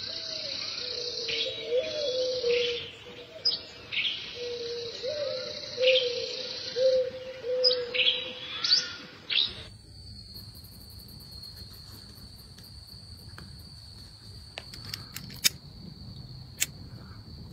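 Birds calling and chirping over a steady high insect trill. About halfway through this gives way to a quieter, steady cricket-like trill, broken by a few sharp clicks as a lighter is used to light a small brass oil lamp.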